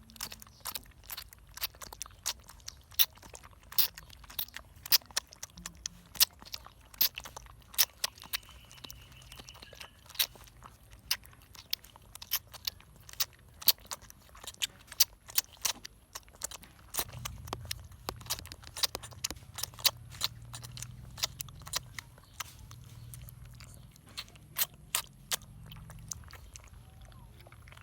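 A puppy chewing on something hard, with sharp, irregular crunching clicks several times a second. A low steady hum joins about two-thirds of the way through.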